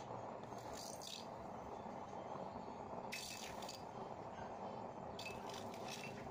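Used-oil burner stove burning with a steady rushing flame noise, broken by spells of crackling about a second in, around three seconds in and again from about five seconds on.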